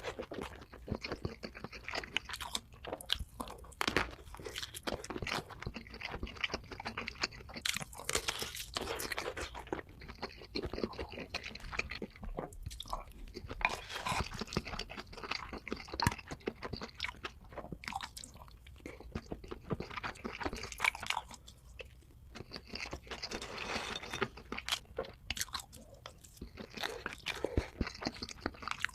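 Close-miked chewing of large mouthfuls of food, with steady, irregular crunching and crackling bites.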